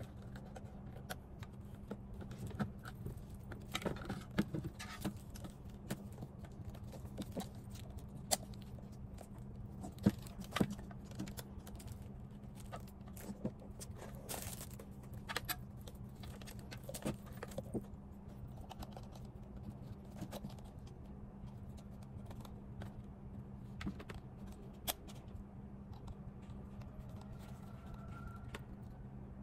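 Light plastic clicks, taps and rattles, scattered and irregular, from handling the parts of a plastic portable blender bottle and fitting its carrying strap, over a steady low hum.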